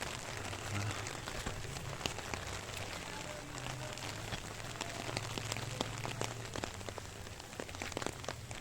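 Rain falling steadily: an even hiss with many individual drops ticking on surfaces close by.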